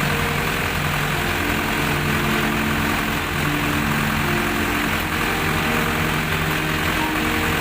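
Colt Diesel 100 PS diesel engine running steadily to power a well-drilling rig, with background music playing over it.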